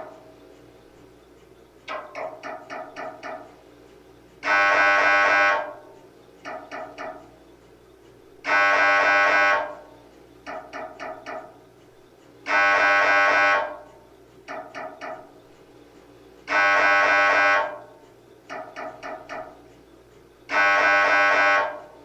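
MRI scanner's gradient coils running a scan sequence: a loud buzzing tone lasting just over a second, repeating every four seconds, with a short run of three to five quick knocks between each tone.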